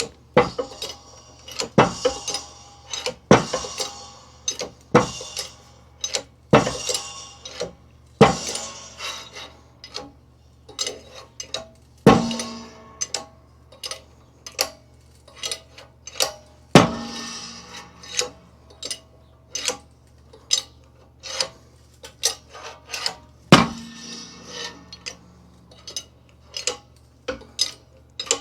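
Sharp metallic clicks and knocks repeating about one to two a second, with three louder ringing knocks, as a new wheel bearing is worked into a Honda Accord's steering knuckle.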